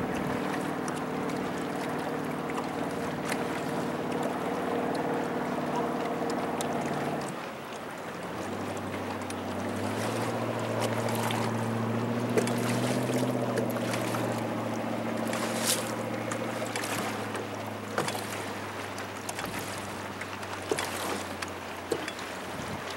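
Motorboat engine running at a steady note, with water splashing against the hull. About seven seconds in the engine note drops away, then comes back at a lower pitch, rises briefly and fades in the second half, leaving the slap and rush of water.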